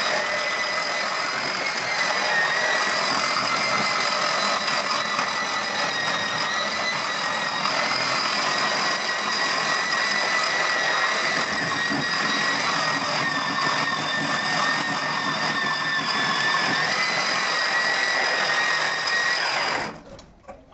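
Angle grinder with a shrouded grinding wheel running against a cement floor: a steady high whine that wavers slightly in pitch as the wheel is pressed and moved, grinding the base surface during preparation for terrazzo. It cuts off suddenly near the end.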